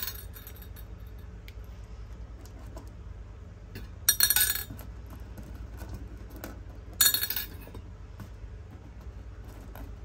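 Hard candies clinking against glass in two short bursts, about three seconds apart, each with a brief ringing tone.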